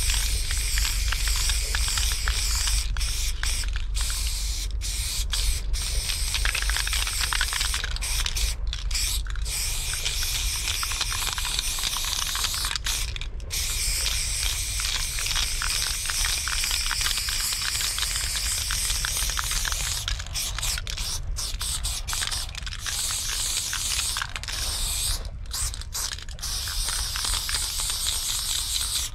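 Aerosol spray paint can spraying in long strokes, broken by short pauses every few seconds, over a low rumble that eases after the first third.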